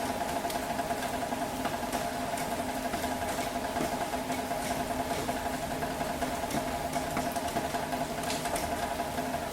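Steady city rain falling, with sharp drops and drips ticking on hard surfaces over a steady mechanical hum.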